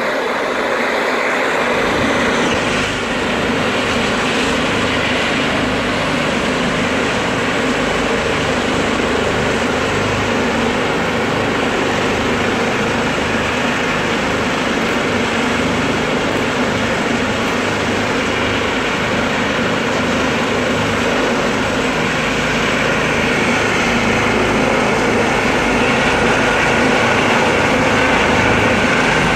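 Rescue helicopter running on the ground: a steady turbine whine over dense rotor and engine noise, growing slightly louder near the end.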